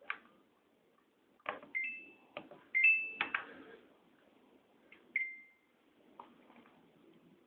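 Control panel of a Samsung WF448AAP front-load washer being operated: a handful of button clicks, each answered by short electronic beeps, some as two-note chirps and one single beep about five seconds in.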